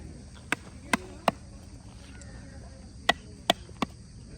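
Sharp knocks: three about half a second apart, a pause of nearly two seconds, then three more at the same pace, over a steady low background rumble.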